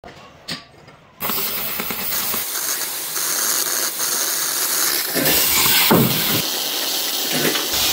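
Oxy-fuel cutting torch hissing as it burns a circular hole through thick steel plate, starting about a second in after a short quiet stretch; the hiss changes abruptly a few times.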